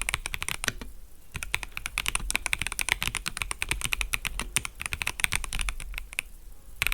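Fast typing on an FL-Esports MK750 gasket-mount mechanical keyboard: a rapid run of key clacks, pausing briefly about a second in.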